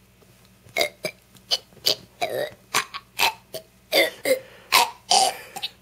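A young boy burping on demand: a rapid run of many short burps, two or three a second.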